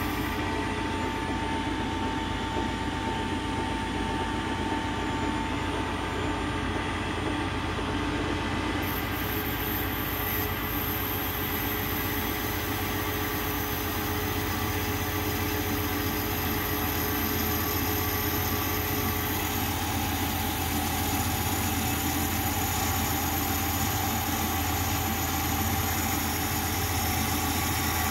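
Metal lathe running steadily while its tool, set in a radius-cutting attachment, cuts the spinning steel workpiece: a steady low hum with a thin whine, and a higher hiss that fills in about nine seconds in.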